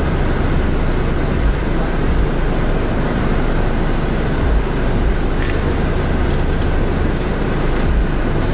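Steady road and engine noise inside a moving car, with a low hum and a few faint clicks.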